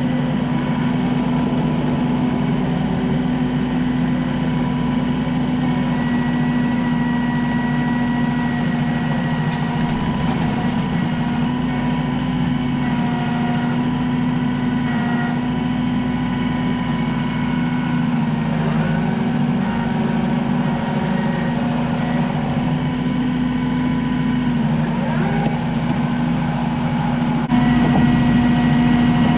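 Engine running at a steady speed, stepping up a little in loudness near the end.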